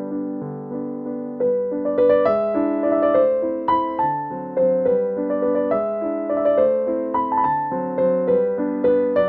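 Background piano music: a melody of struck notes, each fading away, over changing chords.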